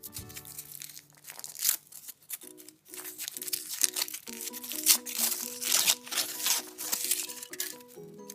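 Foil wrapper of a chocolate surprise egg crinkling and tearing as it is peeled off by hand, in irregular rustles. Light background music with a short-note, stepping melody comes in after about two seconds.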